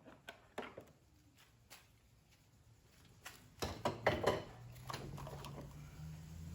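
Tools being handled on a bolt torque test rig: scattered metallic clicks and knocks, with a cluster of louder clanks about three and a half seconds in. A low steady hum follows.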